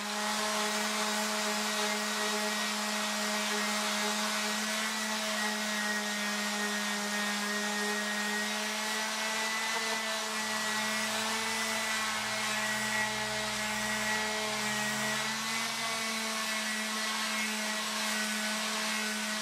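Corded electric hand sander running steadily while sanding a wooden lathe bed extension flush, a constant motor drone at one pitch. A lower hum joins in for several seconds midway.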